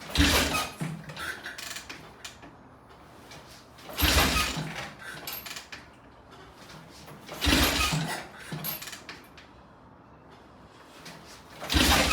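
Triumph T20M Tiger Cub single-cylinder engine kicked over four times, about every four seconds, each kick a clunk of the kickstart mechanism as the engine turns over without firing. The bike is hard to start despite spark at the ignition.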